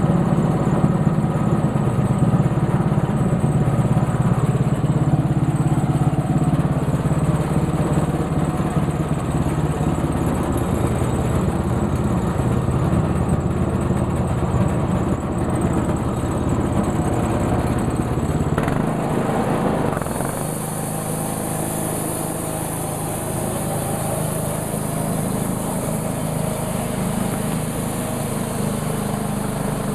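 Sawmill's engine running steadily while sawing a black walnut log. About two-thirds of the way in the sound changes: the deep hum drops away and a higher hiss comes in for the rest.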